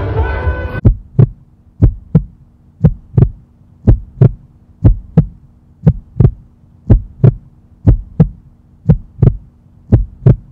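Heartbeat sound: slow paired low thumps, a short gap within each pair and about one pair a second, over a steady low hum.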